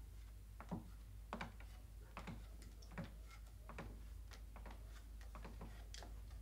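Faint, irregular knocks and taps of shoes and hands on a wooden ladder and loft boards as someone climbs, about one or two a second, over a steady low hum.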